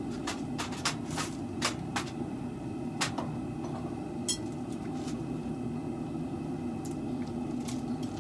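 Scattered light clicks and clinks of small hard objects being handled, including a quick rattle a little past the middle, over a steady hum.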